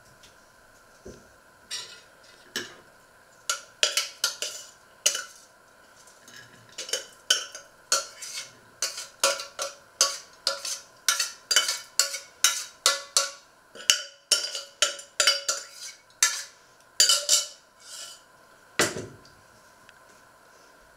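A metal spoon scraping and knocking against a stainless steel saucepan, about two sharp strikes a second, as food is scraped out of the pan. Near the end comes one heavier knock as the pan is set back down on the hob.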